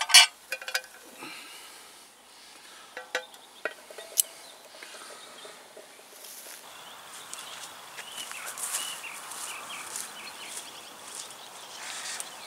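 A few sharp metal clinks of a spoon against a camp-stove cooking pot, then outdoor dusk ambience from about six seconds in: birds calling over insects chirping.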